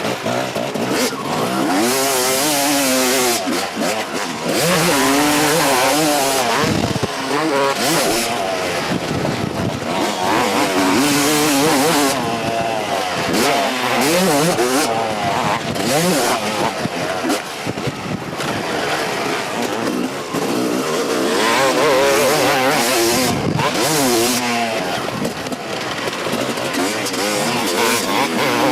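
Kawasaki KX250 single-cylinder two-stroke motocross engine revving hard as the bike is ridden. The pitch climbs and drops again and again as the throttle opens and shuts and the gears change.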